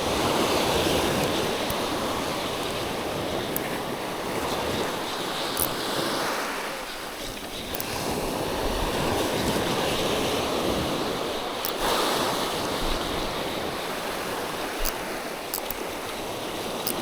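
Sea surf washing ashore, swelling and easing every few seconds.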